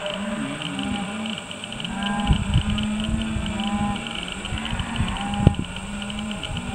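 A mob of beef cattle mooing, several long low calls overlapping one another, with one sharp knock about five and a half seconds in.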